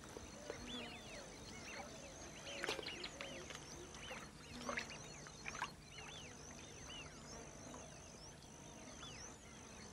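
Faint bird calls: many short whistled chirps that rise and fall, over a steady high-pitched tone, with a few sharp clicks in the middle.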